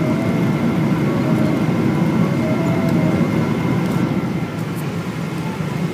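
Steady cabin noise inside a Boeing 777-200 airliner descending on approach: a constant rumble of engines and airflow, with a faint steady whine above it.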